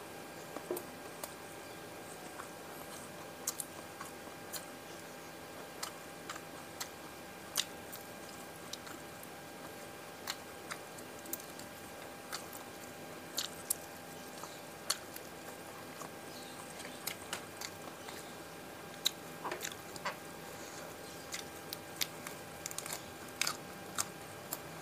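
Close-miked eating sounds as fried mujair (tilapia), rice, sambal matah and raw vegetables are chewed: scattered, irregular crunches and chewing clicks over a faint steady hum.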